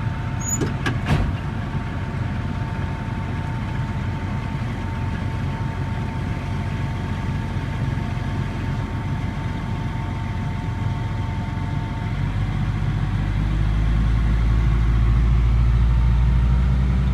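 Tractor engine running steadily, heard from the cab, with a couple of sharp knocks about a second in. About twelve seconds in, the low engine drone grows louder.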